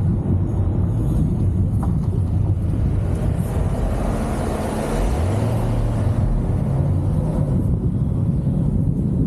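2023 Chevrolet Camaro SS's 6.2-litre V8 engine running under way, with road rumble. About five seconds in, the engine note rises and then holds steady at the higher pitch.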